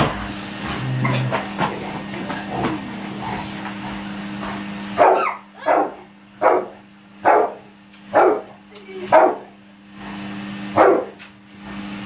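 A Dogue de Bordeaux barking seven times, deep single barks about a second apart, the last after a short pause. Before the barks, a steady hum runs and cuts out about five seconds in.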